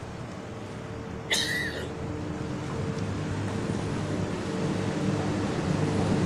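Car engine and tyre hum heard from inside the cabin as the car drives up the ramp into a ferry's enclosed car deck, a steady low hum that grows louder as it goes in. About a second in, a short high squeal cuts through.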